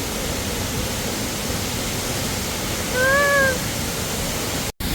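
Waterfall rushing steadily, close by. About three seconds in comes one short rising-and-falling high call, and near the end the sound cuts out for an instant.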